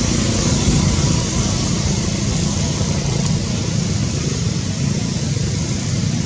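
Steady outdoor background rumble with an even hiss above it, with no distinct events.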